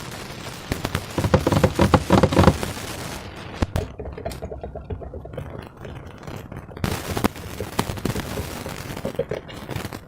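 Slime being squeezed and worked by hand, giving runs of quick wet crackling clicks and pops as air pockets burst. The crackling is thickest a second or so in and again from about two-thirds of the way through.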